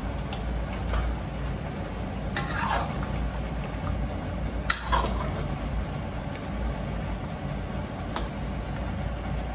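A metal spoon stirring yogurt into mutton gravy in a steel karahi, wet squelching with scraping and sharp clicks of the spoon against the pan, the loudest click about halfway through. A low steady hum runs underneath.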